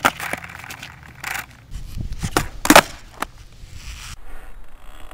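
Skateboard deck and wheels clacking down on asphalt several times, loudest a little under three seconds in, with the wheels rumbling over the rough surface in between.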